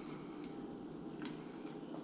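Quiet room tone: a steady faint background noise with a couple of very faint ticks.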